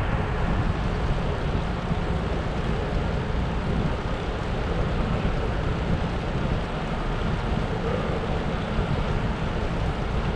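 Steady wind rush on the microphone with low road rumble from a bicycle riding on smooth tarmac.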